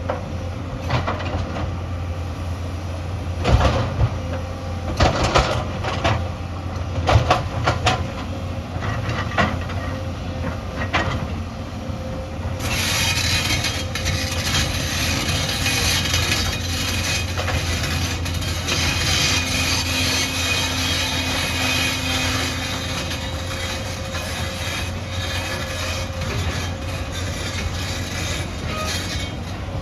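Excavator diesel engine running steadily, with knocks and clanks of the bucket working among stones in the first half; about halfway through a loud steady hiss sets in over the engine.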